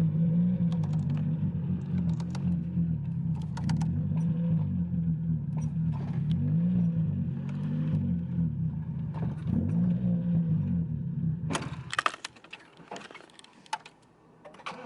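Toyota Corolla AE70's 4A-GE four-cylinder engine running on the move, its note rising and falling with engine speed. The engine stops about twelve seconds in, followed by a few clicks and rattles.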